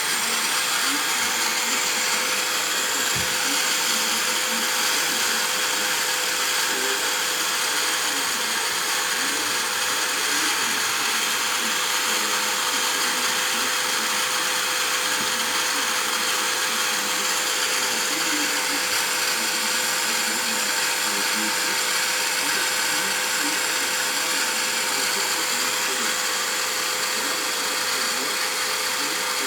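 A small vacuum cleaner running steadily: an even hiss with a constant whining tone.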